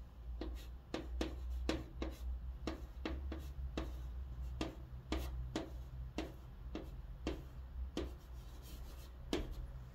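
Chalk writing on a green chalkboard: a run of short, sharp, irregular strokes and taps, roughly two a second, as a word is written out letter by letter.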